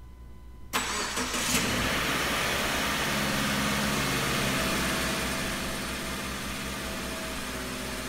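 Subaru XV Crosstrek's flat-four boxer engine being remote-started: the starter cranks briefly about a second in, the engine catches and runs at a raised idle just after starting, easing down a little after about five seconds.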